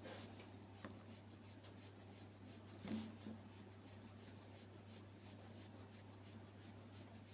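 Near silence: room tone with a steady low hum, and a soft knock about three seconds in.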